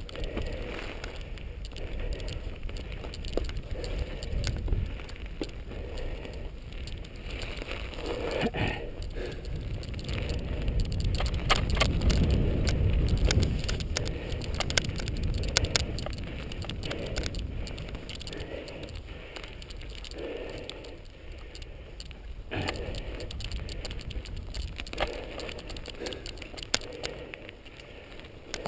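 Mountain bike riding a dirt single-track, heard from the bike: a steady low rumble of tyres on the trail with many sharp clicks and rattles from the bike and loose ground. The rumble grows loudest about twelve seconds in.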